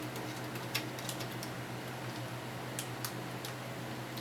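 Scattered small clicks and ticks of a screwdriver tightening a tiny screw on an M.2 SSD heatsink on a motherboard, a few light taps close together near the end, over a steady low hum.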